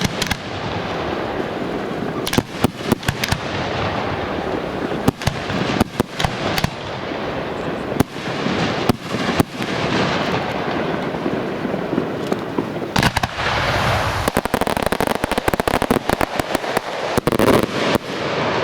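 Fireworks display: aerial shells bursting with repeated sharp bangs over a continuous crackling hiss. Near the end comes a dense run of rapid crackling pops.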